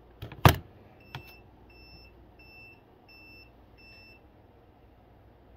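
A sharp snap, then a voltmeter beeping an alarm: about five short, high, evenly spaced beeps that stop after a few seconds.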